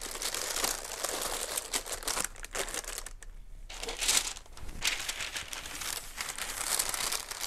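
Brown kraft wrapping paper rustling and crinkling as it is handled, with a short pause about three seconds in.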